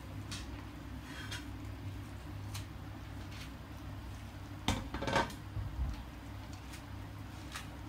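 Great Pyrenees eating from a stainless steel bowl on a wire stand: scattered clicks of its mouth and muzzle against the metal bowl, with a louder run of clattering a little under five seconds in.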